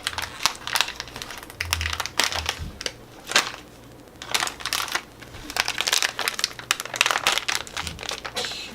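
A small snack wrapper crinkling and crackling as it is handled and worked open, in quick irregular bursts with a short lull partway through.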